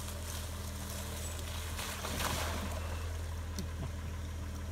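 1996 Jeep Grand Cherokee ZJ's engine running low and steady as the Jeep creeps into a muddy puddle, with a swell of water sloshing around the tyres about two seconds in.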